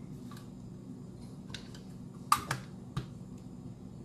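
Handling clicks and knocks of an AR-15 upper receiver and its ribbed handguard being turned over in the hands on a workbench: several short clicks, the loudest a little past two seconds in, over a steady low hum.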